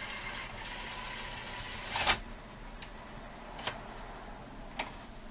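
Toshiba DVR20 VHS tape-deck mechanism running with no cassette in it: a steady whirr of motor and gears, a clunk about two seconds in as it changes mode, then a few light clicks. It is switching modes after being tricked by covering the tape-end sensor.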